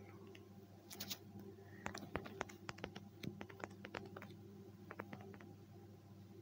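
Typing on a smartphone's touchscreen keyboard: a quiet, irregular run of quick taps, busiest from about two to four seconds in, over a faint steady hum.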